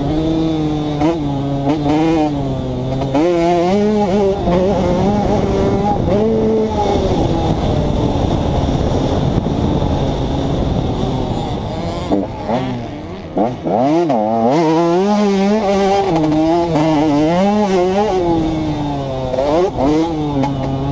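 2011 KTM 150 XC's two-stroke single-cylinder engine heard from on board while riding, revving up and dropping back again and again as the rider works the throttle through the gears. About twelve seconds in the revs fall away briefly, then climb sharply in quick bursts.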